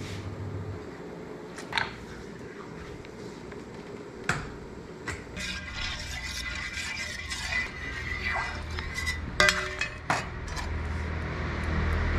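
Kitchen utensil clatter: a few sharp knocks, then a metal spatula scraping and clinking against a griddle pan as batter is spread, with one loud clank near the end.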